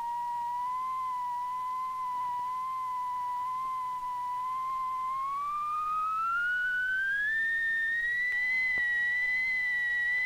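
Pure sine-wave test tone from an audio signal generator, held steady for about five seconds, then gliding up to about an octave higher as its frequency is turned up, and holding there.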